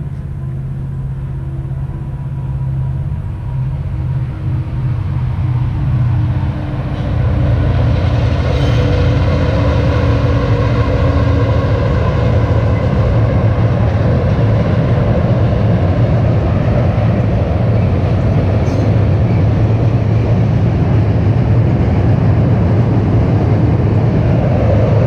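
Train approaching and passing: a rumble that grows louder over the first several seconds, then holds at a steady, loud level as the train goes by.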